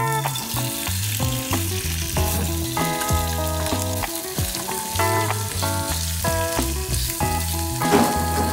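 Sliced raw meat sizzling in hot oil in a small nonstick frying pan on a gas stove, being stirred and pushed around with a silicone spatula. Background music with clear melodic notes and a steady bass plays under the sizzle.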